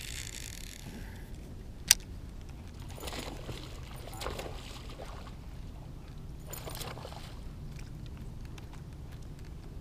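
Water splashing in a few short bursts, with one sharp click about two seconds in, over a low steady rumble.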